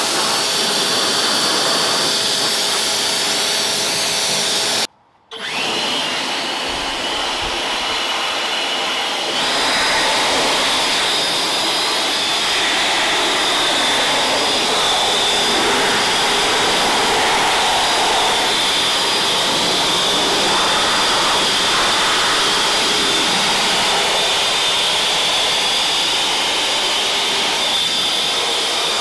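Pressure-washer wand spraying water over the engine bay. After a brief cut, an EGO 650 CFM battery blower runs steadily with a high whine, speeding up with a rise in pitch a few seconds later as it blows water off the engine.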